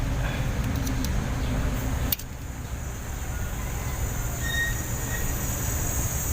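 Steady low mechanical rumble, with a few sharp metallic clicks from hand tools working the valve adjusting screws and feeler gauge, the sharpest about two seconds in.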